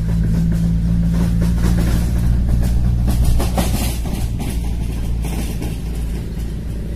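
A small engine running steadily with a low hum that weakens after about three seconds, over rough rustling noise.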